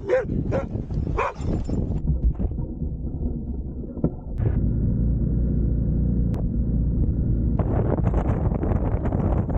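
A dog barks a few times at the start, then trail motorcycle engines run: one ticking over quietly, picking up into a steady, louder run a few seconds in, and near the end a rougher engine sound mixed with wind noise as a bike rides along.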